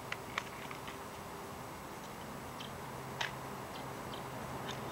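A few scattered light clicks and ticks, as of loaded rifle cartridges being handled, over a faint steady low hum.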